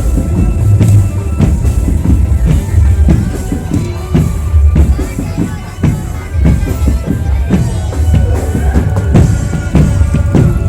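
Loud music with a driving drum-kit beat and heavy bass.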